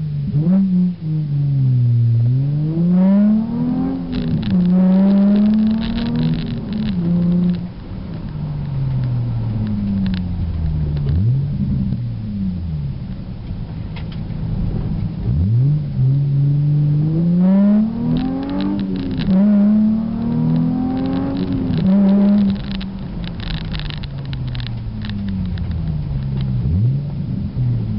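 Nissan 350Z roadster's 3.5-litre V6 through Nismo headers and an Invidia N1 exhaust, heard from inside the cabin with the top up. It makes two hard accelerations, the pitch climbing and dropping back at each gear change, and the engine winds down between them.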